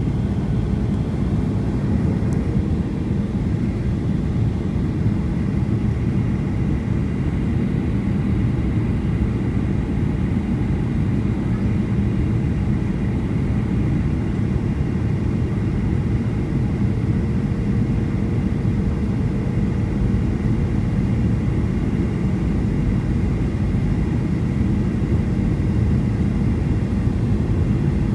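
Airliner cabin noise in flight: a steady, low, even noise with faint steady tones above it, which the uploader at first took for rain.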